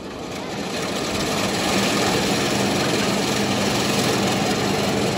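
A loud, steady mechanical drone with a low hum. It swells over the first two seconds and then holds.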